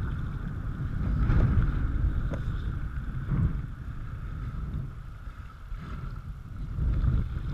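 Wind rumbling on the microphone over the rush and splash of river water along a kayak hull as it is paddled, swelling a few times.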